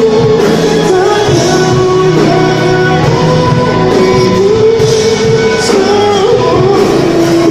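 Male vocalist singing a pop ballad into a microphone, holding long wavering notes, accompanied by a string orchestra with harp.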